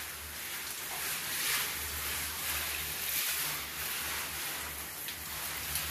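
Shower head spraying a steady stream of water down onto potted areca palm fronds and the tiled floor: an even hiss of falling water that swells and eases slightly.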